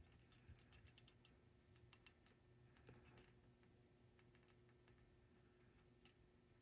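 Near silence: faint room tone with a low steady hum and a scattering of faint, short clicks.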